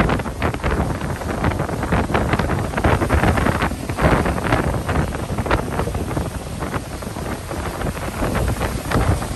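Strong wind hitting the microphone in uneven gusts, a heavy low rumble with crackly bursts.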